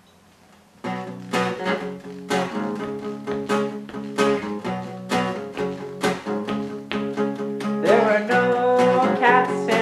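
Acoustic guitar strummed in a steady rhythm, starting about a second in, playing a song's introduction. Near the end a higher melodic line that slides in pitch comes in over the chords.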